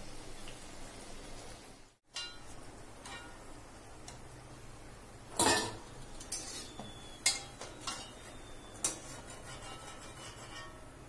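Metal slotted spoon clinking against an iron kadai about five times while a pearl millet vada fries in hot oil, the loudest strike about five seconds in, over a steady low sizzle of the frying oil.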